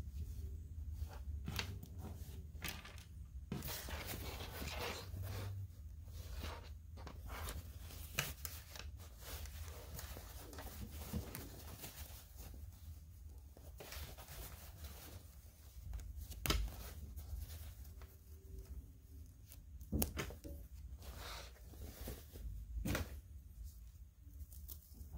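Hands handling and unfolding a small toy canvas tent: cloth rustling and brushing with many small clicks, and a few sharper knocks in the second half.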